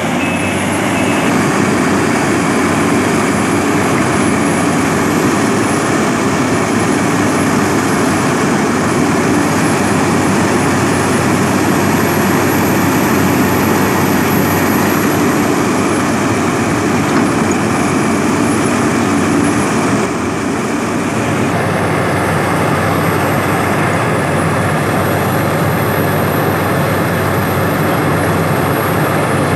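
Sumitomo SH350 excavator's diesel engine running hard, a loud steady drone that dips briefly about two-thirds of the way in. A reversing alarm beeps for about the first second.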